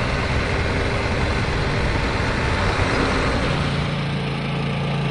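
Truck engine sound effect running as the truck drives off. About three and a half seconds in, it gives way to a steadier, even engine hum.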